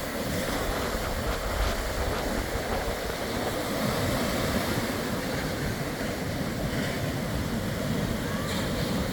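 Ocean surf washing steadily onto a beach, with wind buffeting the microphone in a low, uneven rumble.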